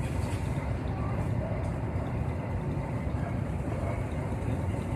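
Many motorcycle engines running together in a queue at a railway crossing, a steady low rumble of traffic, with faint voices.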